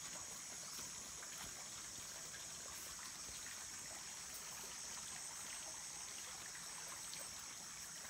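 Shallow stream trickling over rocks, a steady running-water sound, with a steady high-pitched drone above it.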